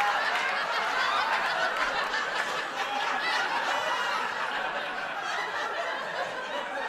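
Studio audience laughing at length, slowly dying down toward the end.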